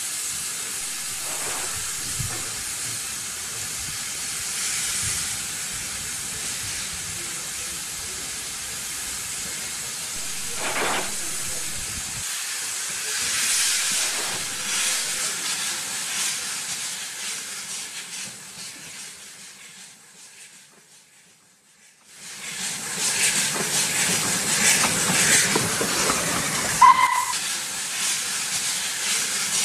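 Steam locomotive sound effects for a model steam tram engine: a steady hiss of steam that fades almost to nothing about twenty seconds in, then comes back louder. A short whistle toot sounds near the end.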